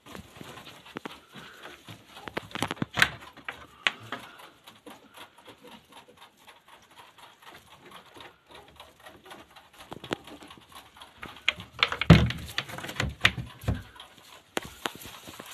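Irregular knocking, scrabbling and rustling from rabbits moving about on straw in wooden hutches, with a louder cluster of thumps about twelve seconds in.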